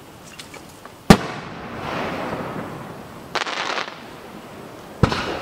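Aerial firework shells bursting: a sharp bang about a second in with a long rolling echo after it, a short crackle midway, and another bang near the end.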